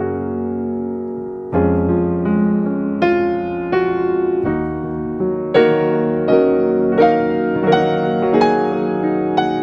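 Background music: a soft piano playing slow chords, a new chord or note struck about every half second to second.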